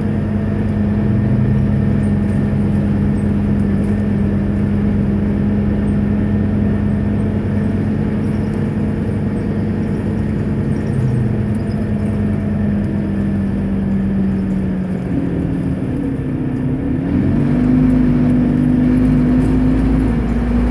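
Scania Omnicity city bus heard from inside the passenger cabin, its engine and drivetrain running under way with a steady hum and road noise. About three-quarters of the way in the hum drops away, then climbs back to a higher pitch.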